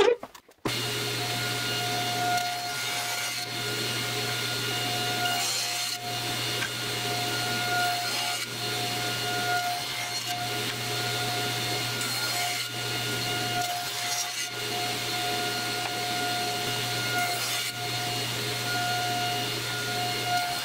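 Table saw running with its blade set low, cutting shallow grooves into pieces of ipe hardwood pushed across it with a push block. It is a steady motor hum with the noise of the cut, and it starts suddenly just under a second in.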